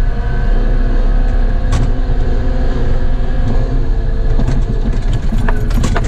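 Cat 914G wheel loader's diesel engine running steadily as the machine drives, heard from inside the cab, with a few sharp rattling clicks over the last second and a half.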